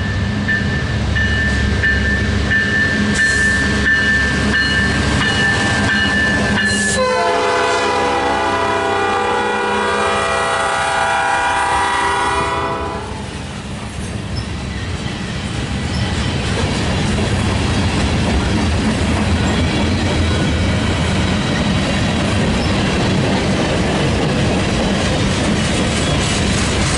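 Freight train rumbling past with a thin steady whine. About seven seconds in a locomotive air horn sounds one long blast of about five and a half seconds, a chord of several notes that sweeps up as it starts. After it, the train's wheels clatter steadily over the rails.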